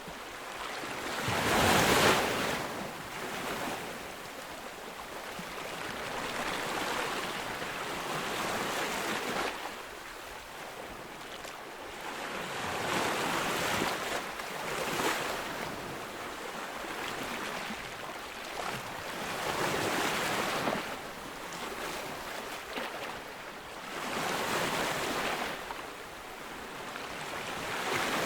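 Ocean waves breaking on a beach, the surf swelling and falling every few seconds. The loudest wave breaks about two seconds in.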